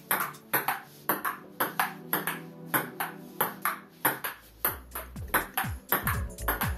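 Table tennis rally: the ball clicks off the painted 1 cm plywood tabletop and the rubber paddles in quick alternation, about three or four hits a second. Background music plays under it, and a low bass line comes in about four seconds in.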